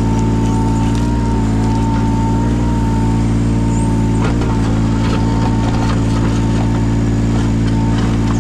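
Yanmar 017 mini excavator's diesel engine running steadily under a constant whine, with a few short knocks, the clearest about four seconds in.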